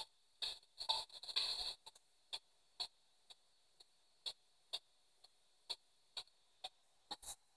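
P-SB7 spirit box sweeping through radio stations, played through a small plugged-in speaker: faint, short clicks of static about twice a second as it jumps from station to station, with a slightly longer burst of radio hiss about a second in.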